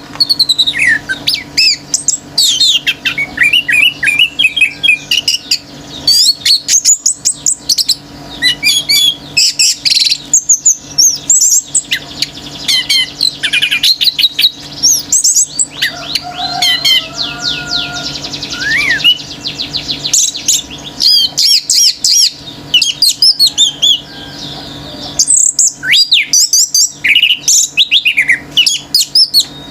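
Orange-headed thrush singing a long, rapid, varied song of whistled notes, sliding phrases and trills, with a faint steady low hum underneath.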